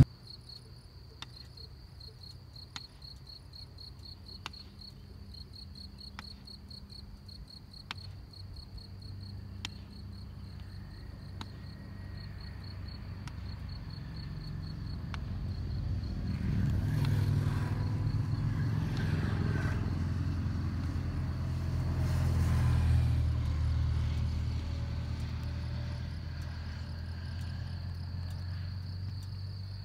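Crickets chirring in a steady, pulsing high trill, with faint clicks about every second and a half in the first half. A low vehicle engine rumble swells in, is loudest about halfway through and again a few seconds later, then fades away.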